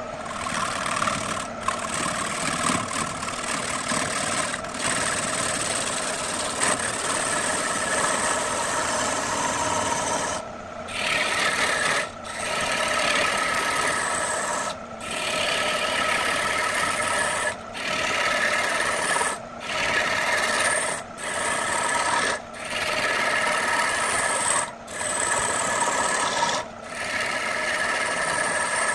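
A hand-held gouge cutting a spinning wood blank on an electric wood lathe: a steady scraping, shaving noise over the hum of the lathe. From about ten seconds in, the cut breaks off briefly about every two seconds, then bites again.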